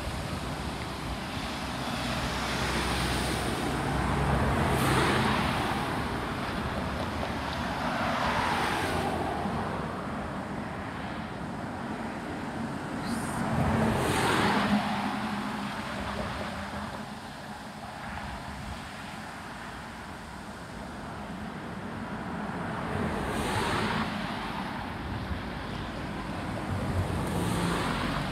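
Road traffic: cars driving past one after another over the crossing, each one rising and fading as it passes, about four in all, with a light steady rush between them.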